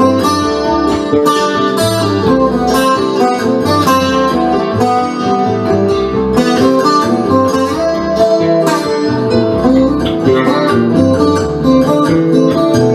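Instrumental guitar music: strummed acoustic guitar over a bass line, with no singing.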